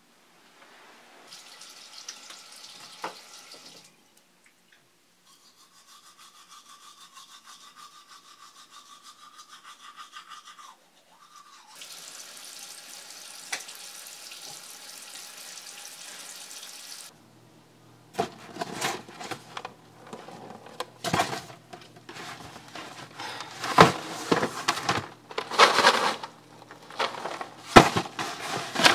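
Teeth being brushed in short stretches of rhythmic scrubbing, with a steady hiss between them. From about two-thirds in, irregular clatter and knocks take over and are the loudest part.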